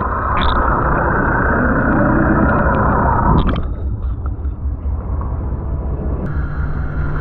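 Steady low rumble of a boat's engine with water noise at sea, thinning out and dropping in level about three and a half seconds in.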